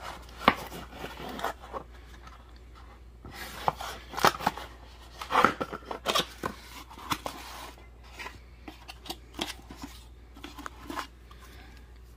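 A cardboard box being opened by hand: the lid and flaps scraping and tapping, and the cardboard cone fountains inside being knocked and handled. A run of taps, scrapes and rustles, busiest in the middle.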